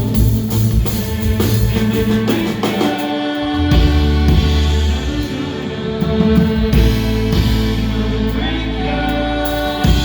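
Live band performing: a voice singing over drums, bass and sustained instrumental tones.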